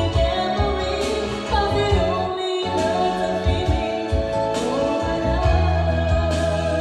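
A karaoke song: a singing voice over a backing track with heavy bass, with a brief drop in the bass about two and a half seconds in.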